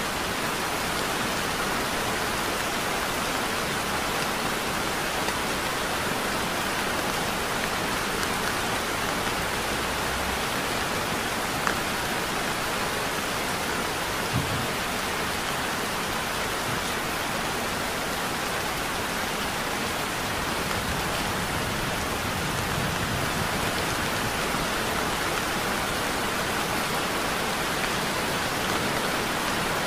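Heavy rain falling steadily, a dense even hiss, with a couple of brief louder taps near the middle.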